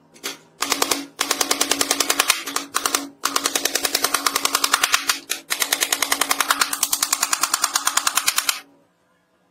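Hammer striking in rapid, evenly spaced blows, about ten a second, in several runs with short breaks.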